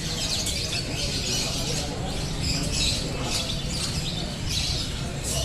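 Many caged songbirds singing at once in a songbird contest, a dense overlapping mix of quick high chirps and trills, over a steady low rumble of crowd and surroundings.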